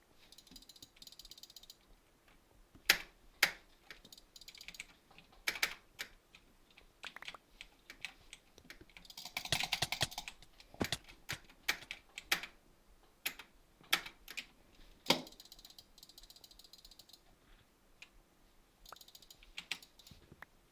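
A series of sharp clicks at irregular spacing, some much louder than others, with a denser clattering run about ten seconds in and faint quick rattles near the start and end.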